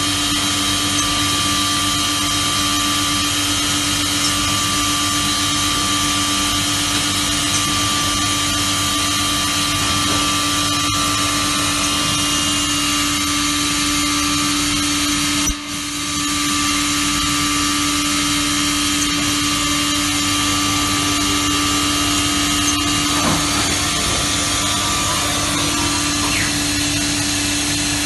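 Vogtland HPC Flex V-200 twin-spindle CNC horizontal machining centre running, its spindles working at the workpieces: a steady whine over machine noise, with a brief drop in level about halfway through.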